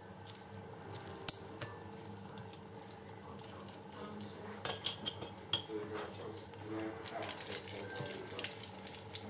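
Glass clinking twice near the start, then a run of small clicks and gritty scraping as a tamarind ball is worked in sugar over a glass.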